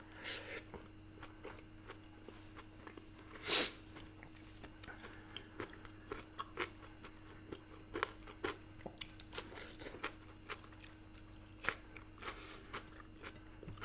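Close-up chewing of a mouthful of food eaten by hand with raw cabbage, with small wet clicks and crisp crunches and one louder crunch a few seconds in. A faint steady hum runs underneath.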